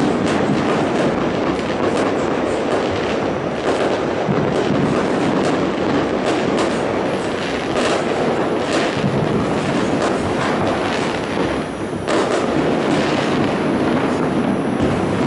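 Fireworks going off in a dense, continuous barrage of rapid crackling and popping, with a brief dip about twelve seconds in.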